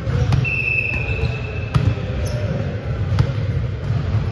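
A volleyball's sharp smacks echo off the hall about four times, over the low hum of a large gym. A thin high tone lasting about a second sounds near the start.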